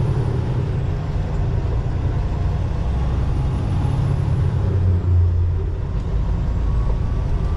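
Semi-truck running down the road, heard inside the cab: a steady low engine drone mixed with road noise.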